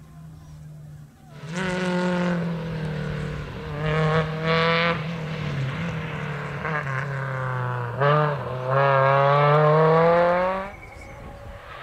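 Rally car engine revving hard, coming in loud about a second in, its pitch falling and climbing with gear changes. About eight seconds in it dips sharply and climbs again to its loudest, then cuts off abruptly near the end.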